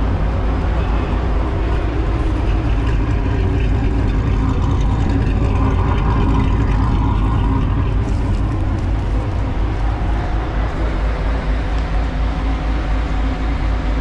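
Car engine held at high revs under load during a burnout, the rear wheel spinning a half-worn GT Radial tyre against the concrete. The sound holds steady and loud throughout.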